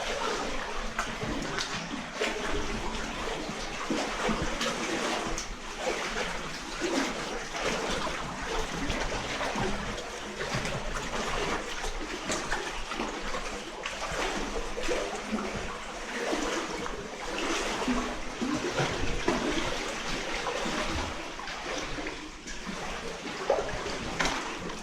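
People wading through standing water, with continuous irregular sloshing and splashing from their steps.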